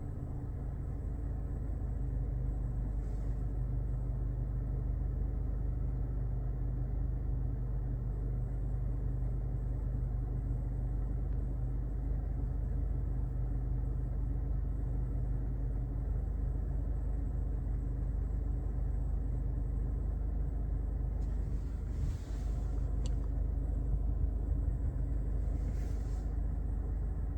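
2022 Toyota Corolla running with its air conditioning, a steady low rumble with a faint thin high tone above it and a couple of brief louder noises near the end. The owner reports a hissing or squealing noise from the AC.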